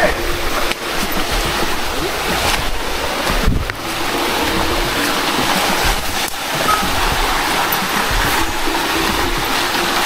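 Steady, loud rushing of moving water, like a stream or falls running close by.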